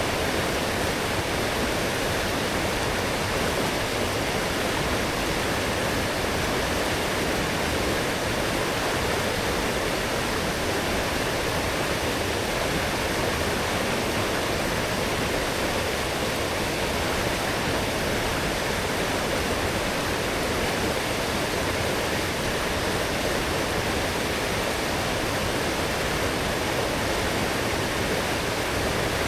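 Strong forest stream running high after heavy rain, a steady, even rushing of water.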